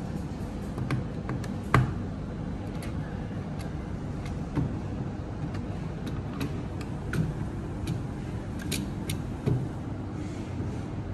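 Sharp clicks and knocks of plastic LED display modules being handled and pried off their cabinet with a removal tool, scattered about eight times, the loudest about two seconds in, over a steady low rumble.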